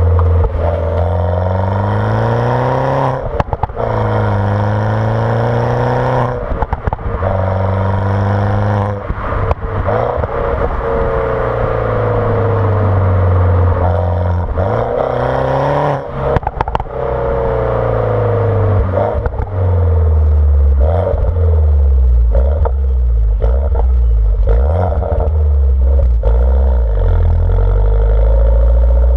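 R56 Mini Cooper S's turbocharged 1.6-litre N14 four-cylinder, breathing through a JCW exhaust with the catalytic converter removed, revving up and dropping back over and over. Sharp exhaust pops and crackles break in as the revs fall, coming more thickly in the last third, where the engine holds a lower steady drone.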